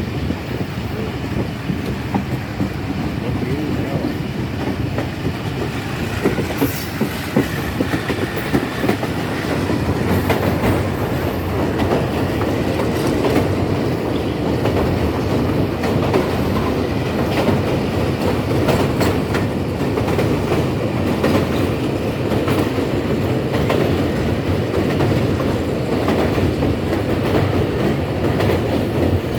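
Passenger train running along the track: a steady rumble with the clickety-clack of wheels over rail joints, getting a little louder about ten seconds in.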